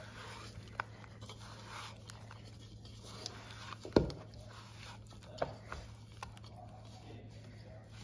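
Hands kneading and squishing cookie dough in a plastic mixing bowl, with a few short sharp knocks, the loudest about four seconds in. A steady low hum runs underneath.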